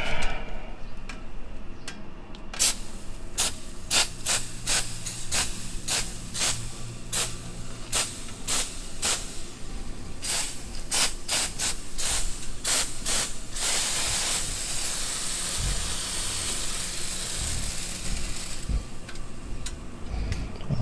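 Aerosol can of Easy-Off Heavy Duty oven cleaner spraying onto a warmed-up motorcycle exhaust header: many quick squirts, about two a second, then one steady spray lasting around five seconds near the end.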